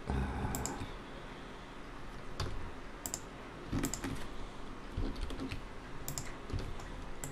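Computer keyboard keystrokes and clicks, single sharp presses spaced about a second apart.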